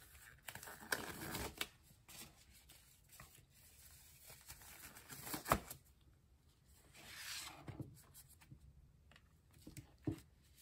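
Quiet rustling and scattered clicks of disposable gloves being pulled on, then of gloved hands handling a comic book in its clear plastic inner sleeve, with one sharp click about halfway through.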